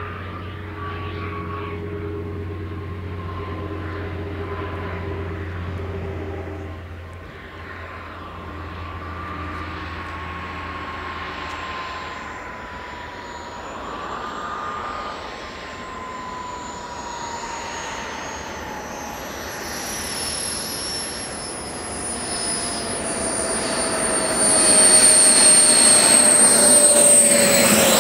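Four JetsMunt M166 model jet turbines on a 1/13-scale RC Airbus A380 running in flight: a steady roar with a whine that slowly falls in pitch, growing louder over the last few seconds.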